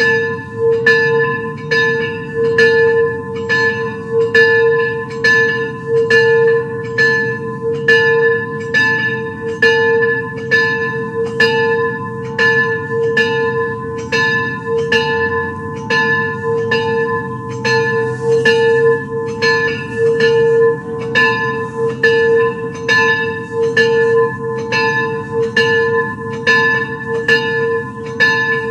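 A single bell tolling over and over on the same tone, struck at an even pace of a bit more than once a second, each strike still ringing when the next one comes.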